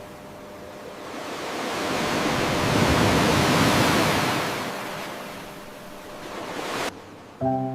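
A single ocean wave surging in and drawing back: a rush of surf that swells to its loudest about three to four seconds in, then fades and cuts off abruptly near the end.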